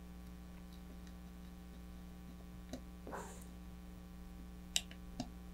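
Steady low electrical hum with a few faint, short clicks from a small screwdriver and wires being handled at an altimeter's screw terminal block.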